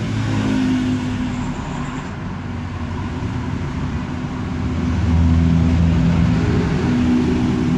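A motor vehicle's engine running steadily, growing louder about five seconds in, over road traffic noise.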